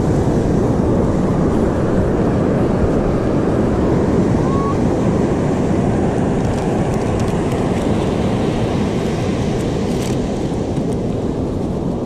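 Heavy ocean surf breaking, a loud steady rush of noise, with wind on the microphone.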